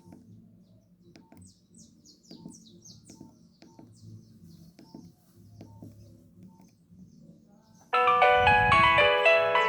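Faint keypad clicks from a Nokia 6131, each with a short beep, about one a second. About eight seconds in, one of the phone's original polyphonic ringtones starts loudly through its speaker: a bright synthesized melody of stacked notes.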